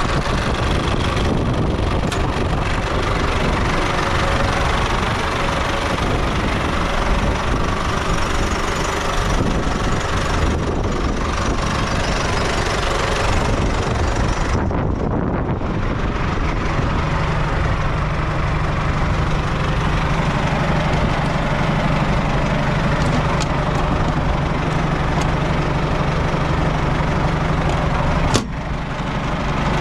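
MTZ-80 tractor's D-243 four-cylinder diesel engine running on the move, with loud, steady engine and ride noise. About halfway through, the high-pitched part of the noise briefly drops away, and then a steady low hum sets in. Near the end a sharp click is followed by a short dip in loudness.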